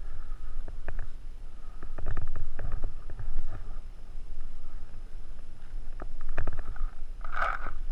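Low rumble of wind and movement on the microphone, with scattered sharp clicks and knocks and a brief louder burst near the end.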